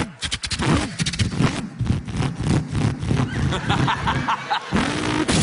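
A man imitating a V8 Holden Torana with his voice, revving it in quick rising and falling pitch glides broken by short popping stutters, and ending on a held rising note.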